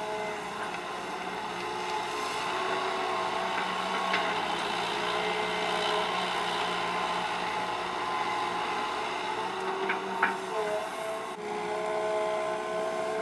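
Hitachi EX120 hydraulic excavator's diesel engine running under load as it digs and swings, with a steady hydraulic whine that shifts slightly in pitch. A few sharp knocks come about ten seconds in.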